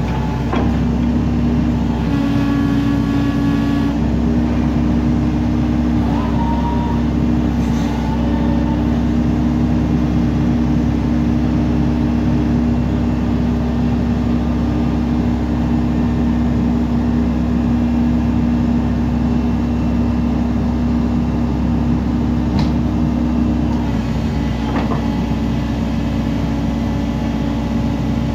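JCB JS145W wheeled material handler running, its diesel engine and hydraulic pump giving a steady hum and whine while the boom and elevating cab are worked. The tone shifts about two seconds in and again near the end as the hydraulic load changes.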